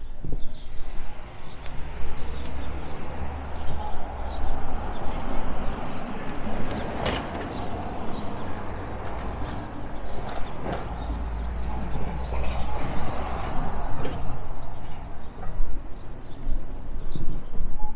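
Street traffic noise heard from a bicycle: a steady rushing with a deep rumble, and a sharp click about seven seconds in.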